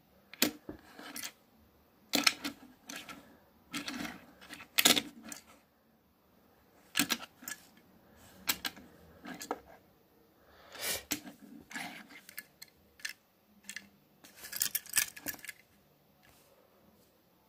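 Handling noise from a small die-cast toy car: irregular clicks, taps and rustling scrapes as fingers turn the car over and grip its metal body and plastic wheels.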